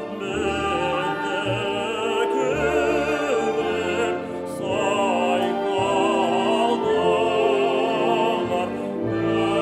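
Male classical singer singing with vibrato, accompanied by a symphony orchestra with strings. The vocal phrases break briefly about four seconds in and again near the end.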